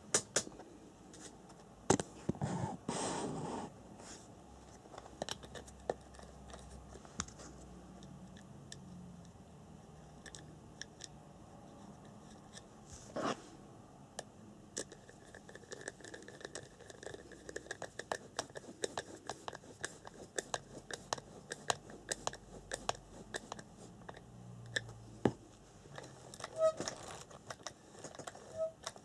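Irregular small clicks and scrapes of parts and tools being handled, with a longer scraping burst about two to four seconds in and a sharper knock about thirteen seconds in. Two brief tones sound near the end.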